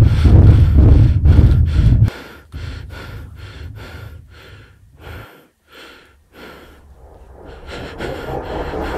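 A person breathing hard and fast in short, quick breaths, about three a second, loud for the first two seconds and then fainter. Near the end a rushing noise begins to swell.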